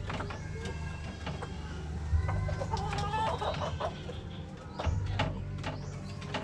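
Chickens clucking in short, irregular calls, with several sharp clicks scattered among them.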